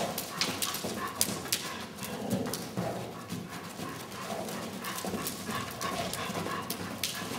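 Hoofbeats of a horse cantering on soft arena footing, a rapid, uneven run of thuds and clicks, with a dog running at its side.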